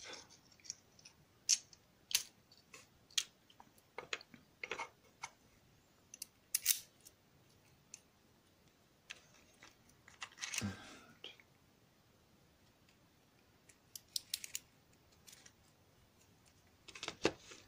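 Scattered sharp metallic clicks and ticks, with a short scrape about ten seconds in and a quick run of clicks near the end, as an Evva DPI euro cylinder lock is handled and taken apart.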